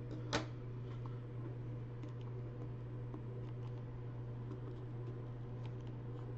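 Faint small clicks and scrapes of a hobby blade and fingers on a cardboard trading-card box as its sticker seal is cut, with one sharper scrape about a third of a second in. A steady low hum runs underneath.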